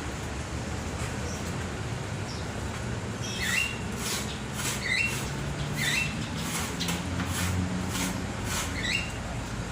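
A bird gives short, sharp chirps with quick pitch flicks, about five of them, from a few seconds in to near the end. They are mixed with a run of brief sharp noises, over a steady low hum.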